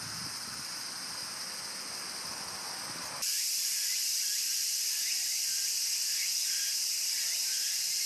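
A steady, shrill chorus of insects. It is quieter for the first three seconds, then cuts in much louder and denser, with a few faint higher chirps over it.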